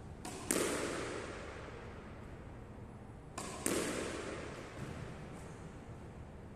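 Squash ball being hit in solo practice: twice, about three seconds apart, a racket strike and the ball hitting the wall in quick succession, the second knock louder, each ringing on in the court's echo.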